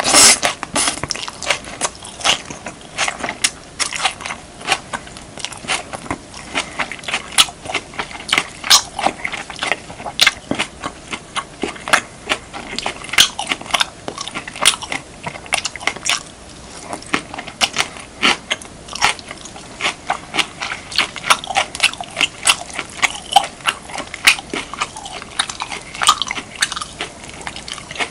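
Close-up chewing of beef, kimchi and rice: wet, crackling mouth sounds and bites coming a few times a second at an uneven pace.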